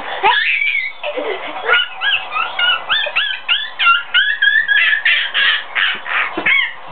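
Small children shrieking pretend dinosaur roars: a quick run of short, high-pitched yelps that rise and fall, then rougher shrill bursts.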